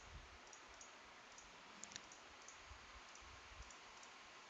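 Faint computer mouse clicks, a handful scattered irregularly, over near-silent low hiss.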